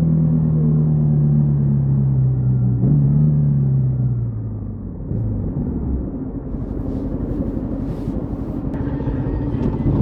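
Yamaha XTZ 150 Crosser S single-cylinder four-stroke engine slowing down, its pitch falling steadily for about five seconds with a brief rise about three seconds in, then settling to a low idle.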